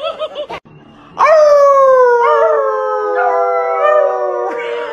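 A dog howling together with people howling along: one long howl that starts about a second in and slowly falls in pitch, joined by a second howling voice about a second later.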